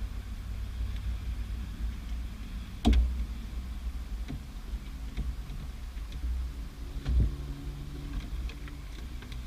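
Plastic interior trim of a C6 Corvette Z06's center console being worked loose by hand: scattered light clicks with two sharp knocks, about three seconds in and again about seven seconds in, over a steady low rumble.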